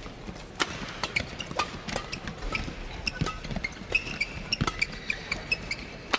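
Badminton rackets striking a shuttlecock in a fast rally, a quick run of sharp hits about every half second to a second, with short squeaks of court shoes between them.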